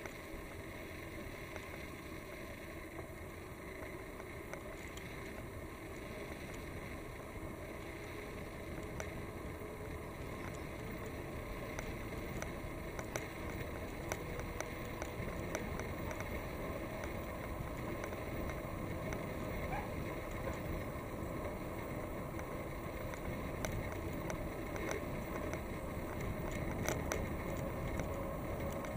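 Wind on the microphone and tyre noise on asphalt from a bicycle rolling along a paved road, growing gradually louder, with scattered light clicks.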